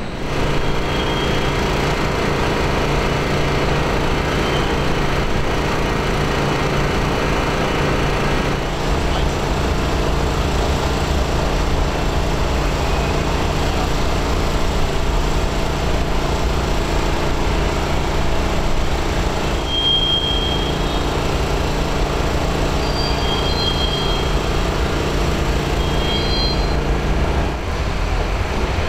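Diesel locomotive engines running with a steady low drone, with a few short high-pitched squeals in the second half.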